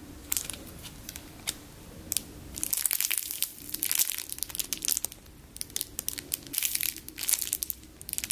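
Clear plastic bag crinkling and crackling as a foam squishy toy sealed inside it is squeezed and turned in the hands. The crackles come in irregular clusters, busiest about three to four seconds in and again near the end.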